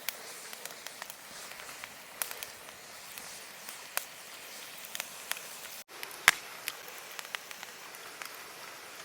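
Irregular sharp crackles and clicks over a steady hiss, with one louder snap about six seconds in.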